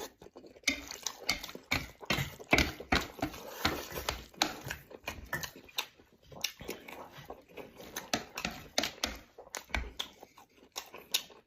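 Close-miked eating sounds of someone eating a stir-fried instant noodle meal: chewing and mouth sounds in an irregular run of clicks and smacks.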